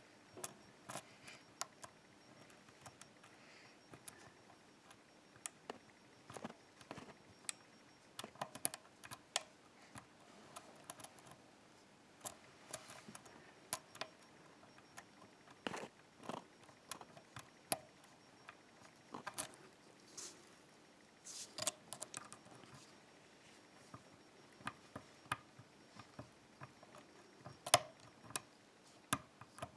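Faint, irregular metallic clicks and scrapes of a lock pick working the pins of an ASSA pin-tumbler oval cylinder under light tension, some clicks louder than others.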